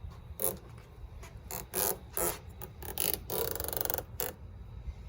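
Backing liner being peeled off the strips of 3M automotive adhesive tape on a hood protector, in several short rips and then one longer pull, about three seconds in, that crackles with rapid ticks.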